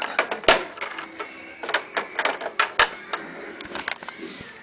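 Handling noise: irregular clicks and knocks of plastic toy figures and a plastic playset being moved close to the microphone, with two sharper knocks, one about half a second in and one near three seconds.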